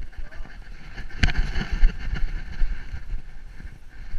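Thumping and rubbing from a GoPro strapped to a poodle's back, the camera and its mount jostled as the dog moves, with a sharp knock about a second in.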